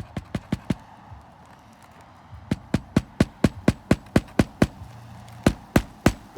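Hammer striking in quick, even runs of about four blows a second, driving roofing nails to fasten a replacement shingle.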